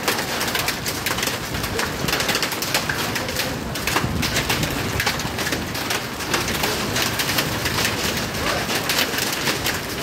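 Heavy rain mixed with small hail pelting a hard tiled floor: a dense, steady clatter of countless small impacts.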